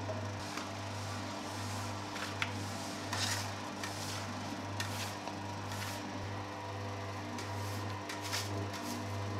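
Commercial spiral dough mixer running: a steady low motor hum that pulses regularly as the hook turns, with occasional slaps and knocks of heavy bread dough against the steel bowl.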